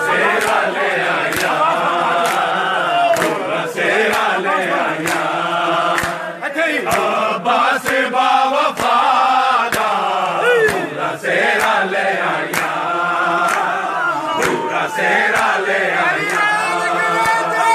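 A crowd of men chanting loudly in unison, clapping their hands to a steady beat.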